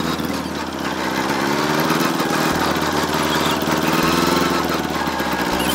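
Diesel farm tractor engine running steadily as the tractor drives along, its pitch drifting slightly up and down over a low rumble.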